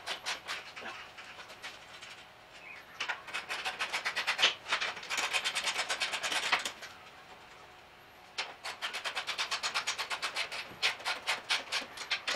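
Ratchet wrench clicking in quick runs of about seven clicks a second, five runs with short pauses between, as the 17 mm towbar mounting bolts are nipped up evenly before final tightening.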